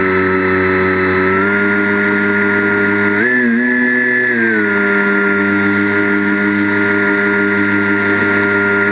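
Electric motor and propeller of an FPV radio-controlled model aircraft, recorded onboard, running with a steady whine. The pitch steps up about a second and a half in and again around three seconds, drops back a little past four seconds, and rises again at the very end as the throttle changes.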